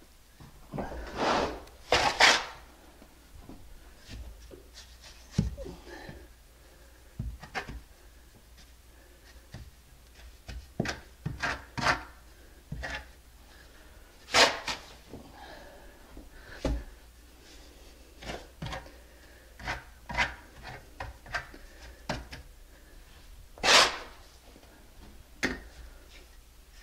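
Steel trowel scraping and spreading wet mortar over a wooden subfloor, laying the mortar bed for a drop-in tub, in irregular strokes with a few louder scrapes.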